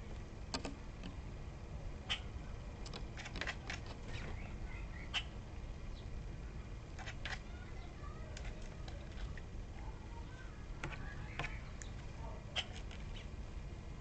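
Birds at a bird bath: short sharp clicks and call notes scattered irregularly, with faint chirps between them, over a steady low rumble.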